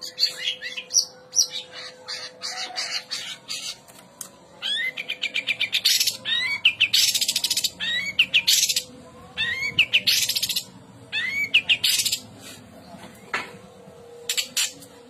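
Long-tailed shrike (cendet) singing: a fast, varied run of short rising whistled notes mixed with harsh, scratchy chatter, coming in dense bursts that are loudest in the middle.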